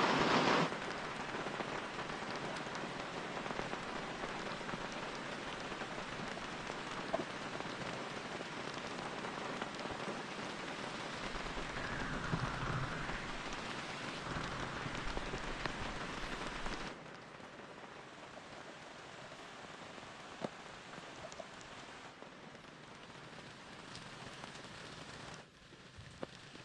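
Steady rain falling, an even hiss of drops with no other distinct sound. It drops abruptly in level twice, about 17 and 25 seconds in, and is quieter after each drop.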